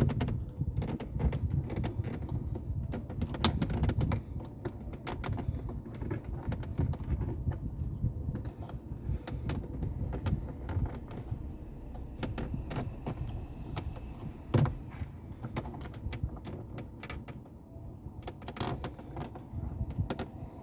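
Plastic dashboard trim clips being pried with a thin screwdriver: scattered sharp clicks, taps and scrapes of the tool and the plastic, with a louder snap about fourteen and a half seconds in, over a low steady rumble.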